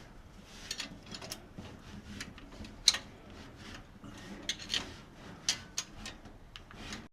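Scattered light clicks and taps of hands and tools working on a car engine under tuning, with a sharper click about three seconds in, over a faint low hum.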